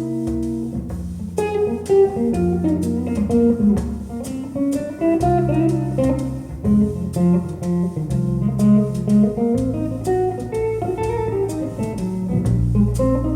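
Music: an instrumental passage of a jazz-blues recording, with guitar and bass notes over a steady beat of light percussion ticks.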